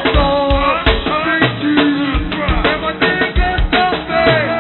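Live go-go band music: drum kit and percussion keep a steady beat under bass and bending melodic lines. The recording is a lo-fi PA tape, dull with the top end cut off.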